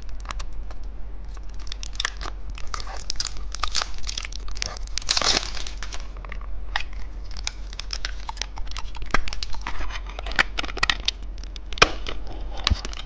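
Plastic candy wrapper being crinkled and torn open to unwrap a phone-shaped novelty candy: a dense, irregular run of small crackles and rips.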